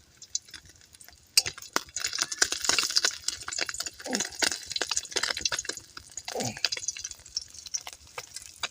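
Wet squelching and sloshing as goat intestine is worked in liquid, with many small clicks and a few short squelches. It starts about a second and a half in.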